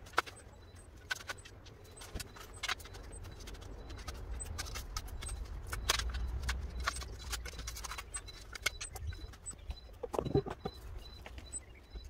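Scattered sharp clicks and scrapes of stones, gravel and a small hand spade as soil and gravel are worked by hand, with a steady low hum underneath.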